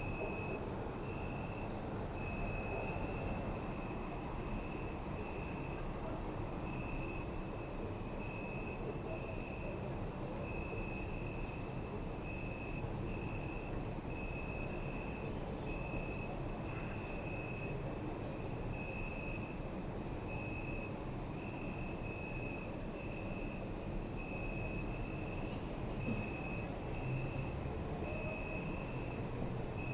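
Crickets chirping at night: a dense, continuous high trill, with a lower chirp repeating about once a second over it. A steady low background hum sits underneath.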